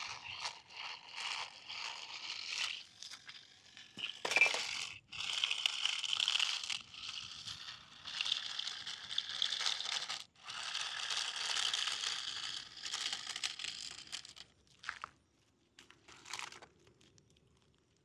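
Small electric gear motor of a toy remote-control car whirring in stop-start bursts of one to three seconds, a gritty, scratchy noise, then quiet for the last couple of seconds.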